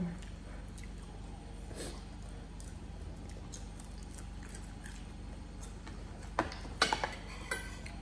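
Metal spoons clinking and scraping against ceramic plates and a bowl in a short cluster about six and a half seconds in, over a steady low hum, with a faint click near two seconds in.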